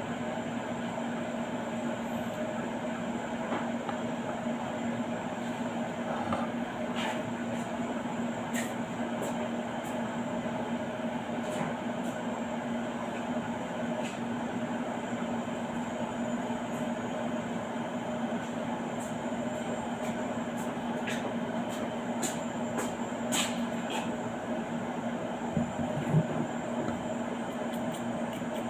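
A steady machine hum with a fixed low tone, and scattered sharp clicks and taps, more of them in the last third.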